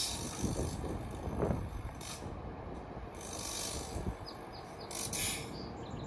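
Kawasaki M8 electric commuter train standing at a platform, its onboard equipment giving a steady rumble, with several short hisses and faint rows of quick chirps over it.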